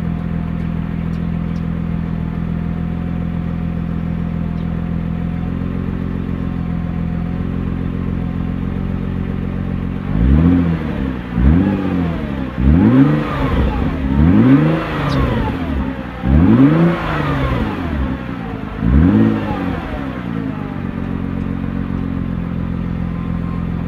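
Nissan GT-R's 3.8-litre twin-turbo V6 exhaust idling steadily, then revved in a run of short throttle blips over about ten seconds, each rising and falling quickly, before settling back to idle near the end.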